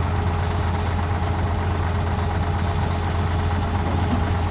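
Heavy diesel engine of earthmoving machinery running steadily at a low, even pace, with a deep constant hum and no revving or impacts.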